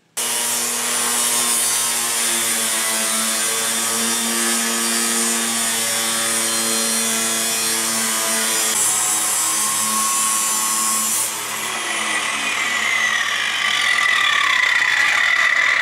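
Angle grinder with a cutting disc cutting through steel sheet, a steady loud whine. About eleven seconds in, the sound changes and a whine falls steadily in pitch over the last few seconds.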